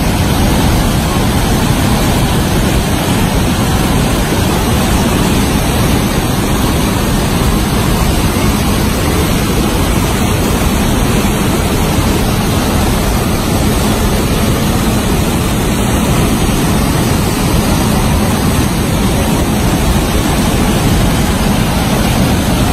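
Muddy flash-flood water rushing over a washed-out road embankment: a steady, loud rush of torrent water after heavy rain.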